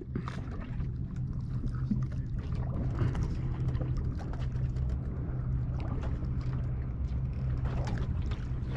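A boat motor hums steadily and low, with faint scattered ticks over it.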